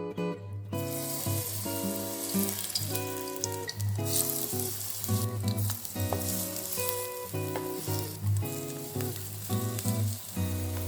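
Onion pancake batter frying in oil in a pan, a steady sizzle that starts suddenly about a second in.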